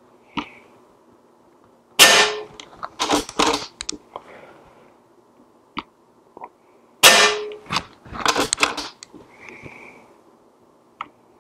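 Hatsan Galatian Quiet Energy .22 PCP air rifle with a shrouded, suppressed barrel, fired twice about five seconds apart: each shot is a sharp crack with a short ring. Each shot is followed by a quick run of metallic clicks as the handle is pulled back and shut to chamber the next pellet from the magazine.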